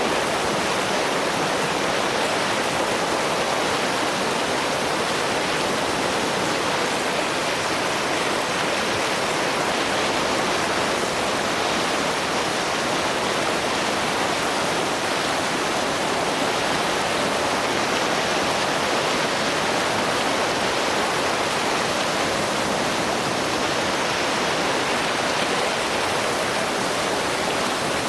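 Rushing water of the River Nile at Makwanzi Falls, a steady loud roar of white water pouring over rapids and falls, unchanging throughout.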